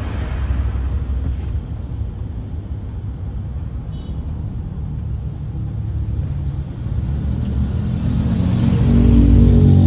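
Car cabin rumble from the engine and tyres of a moving car, a steady low rumble that grows louder near the end.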